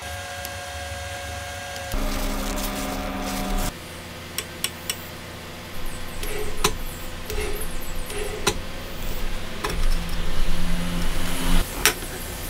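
Small electric screwdriver whirring in short steady runs as it drives a screw into a circular saw's bevel bracket, with sharp metal clicks and knocks between the runs.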